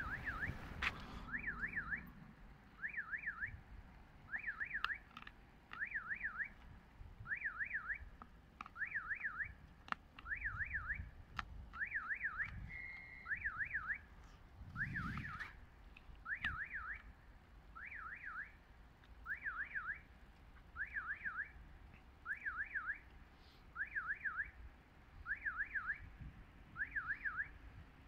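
Railway level crossing warning signal: an electronic warbling tone sounding in short bursts about every one and a half seconds, warning that a train is approaching.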